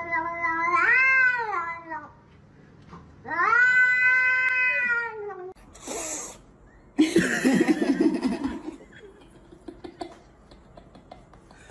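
Domestic cats yowling: two long, drawn-out meows that rise and fall in pitch, then a short hiss about six seconds in and a rough, wavering growl.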